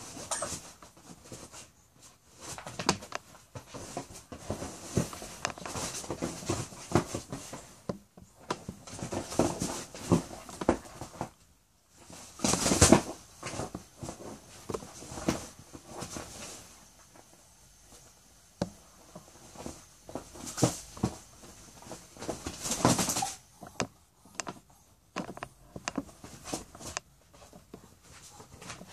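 A dog and a rooster scuffling on a leather couch and rug: irregular scrabbling, rustling and light thumps of paws and feathers, with two louder flurries, one a little before halfway and one about three-quarters through.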